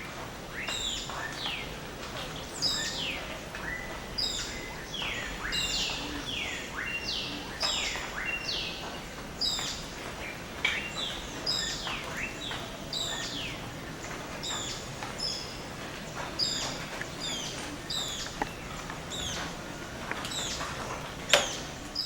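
Dawn chorus of rainforest birds: many overlapping short chirps and whistles, many falling in pitch, over a steady background hiss. A single sharp click comes near the end.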